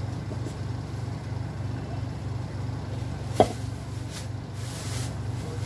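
A washing machine drying clothes runs with a steady, pulsing low hum. A single sharp knock about three and a half seconds in.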